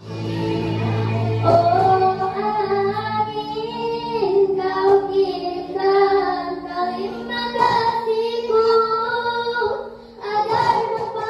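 A young girl singing solo into a microphone over an instrumental accompaniment of long, held chords.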